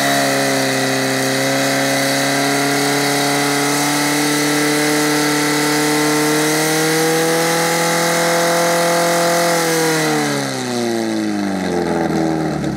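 Portable fire-sport pump's engine held at high revs while it drives water through the hoses to the jets, its pitch steady and creeping slightly higher, then winding down over the last three seconds.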